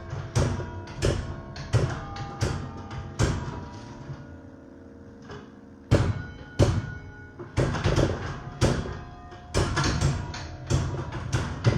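Church tower bells played by hand in a carol tune: single struck notes, each starting with a sharp knock and ringing on in long tones. The strikes stop for about two seconds a few seconds in while the bells keep ringing, then the tune resumes.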